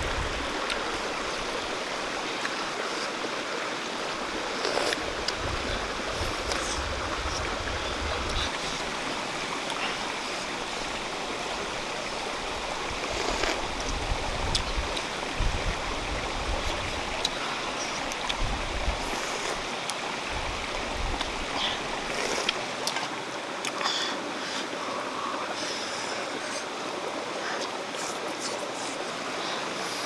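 Steady rushing noise of running water, with scattered light clicks and low gusts of wind on the microphone that come and go for the first two-thirds.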